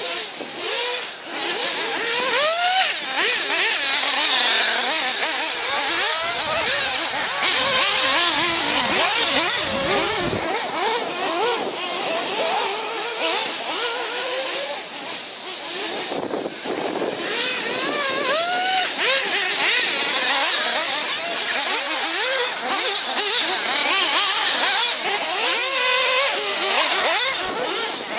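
Several electric RC off-road cars running together, their motors whining up and down in pitch as they accelerate and slow around the track. Wind buffets the microphone for a few seconds about six seconds in.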